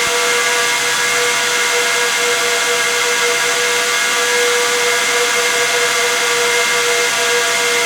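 Six high-speed cooling fans of a Dell EMC PowerEdge XR12 server running: a steady rush of air with several whining tones layered over it, the lowest and strongest of them wavering slightly.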